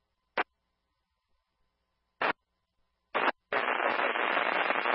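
Fire-department radio traffic played from a police and fire scanner app, between transmissions: three brief bursts of static with dead silence between them, then a longer stretch of steady static hiss near the end.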